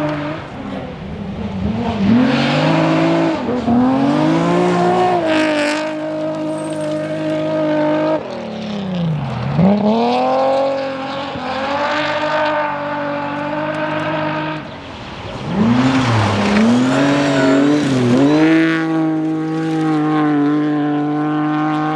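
BMW rally car engine at high revs under full throttle, holding a steady note with pitch climbs through the gears. Twice the pitch drops sharply as the driver lifts off, then climbs back as it accelerates again.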